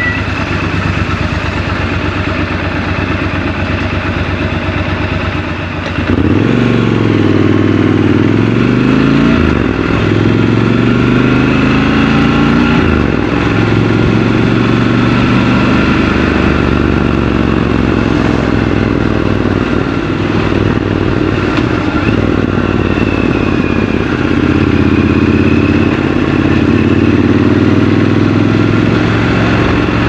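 Triumph Scrambler 1200 XC's 1200 cc parallel-twin engine idling, then about six seconds in it pulls away, revving up through the gears with a couple of shifts, and runs on at city speed.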